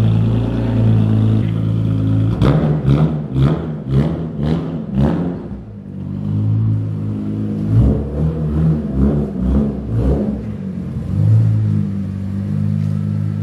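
BMW E46 M3's S54 inline-six, fitted with long tube headers, idling and then revved in two runs of quick throttle blips about two a second, settling back to idle between and after them.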